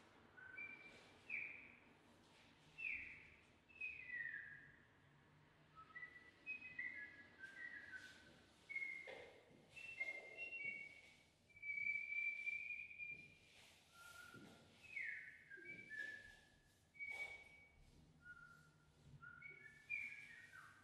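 Short, high whistled notes, many sliding quickly downward and a few held steady, the longest just past the middle, coming in an irregular pattern with brief pauses between them.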